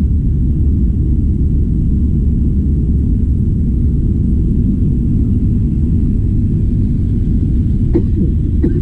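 Steady low rumble of wind buffeting the microphone, with a couple of faint short knocks near the end.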